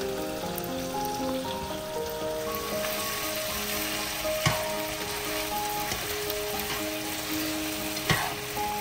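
Food frying in hot oil in a pan, sizzling steadily and a little louder after a couple of seconds, with two sharp knocks, one about halfway through and one near the end. Background music plays underneath.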